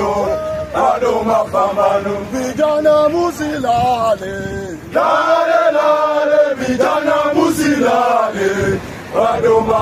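Men's voices chanting in unison, a sung protest chant with long held notes.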